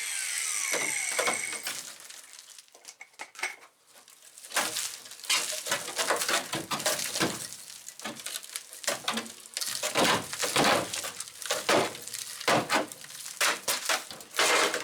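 A power cutting tool is switched off and winds down with a falling whine, then comes a long run of irregular metallic clanks, rattles and scrapes as the cut, rusted steel floor pan section of a car is worked loose.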